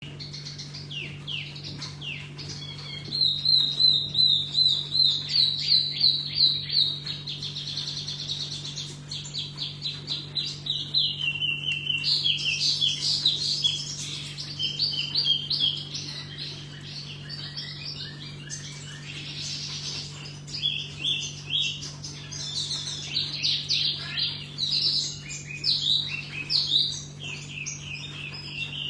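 A songbird of the kind Vietnamese keepers call tiểu mi singing continuously: fast strings of repeated high chirps and trills, loudest in a long rapid run a few seconds in. A steady low hum sounds underneath.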